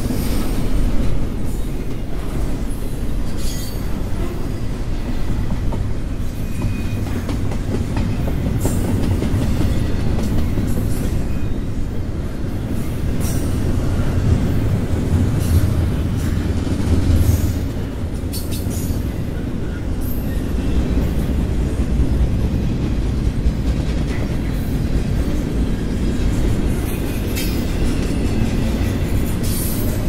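Double-stack intermodal container cars rolling past on the rails: a steady low rumble of steel wheels with occasional clacks and a few brief, faint wheel squeals.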